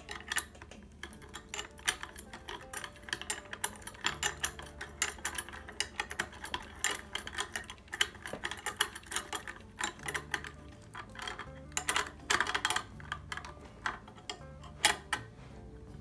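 Rapid small clicks and clinks of hands working the ceiling fan's light-kit socket and small metal parts at the switch housing, over background music with a steady low bass.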